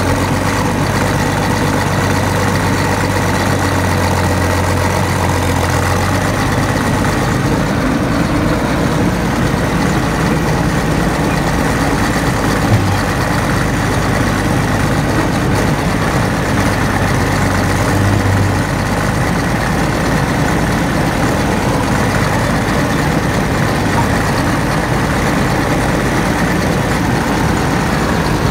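Cat D6B bulldozer's diesel engine running steadily with a deep hum, which eases about six seconds in.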